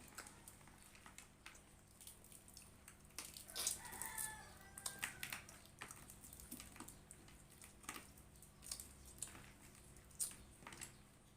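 Soft eating sounds: scattered small clicks and smacks of chewing fried chicken and rice close to the microphone, with a brief wavering call about four seconds in.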